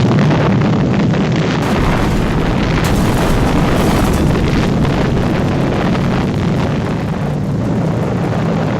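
Loud, continuous rumble of a huge explosion, deep and steady with a roar of noise above it.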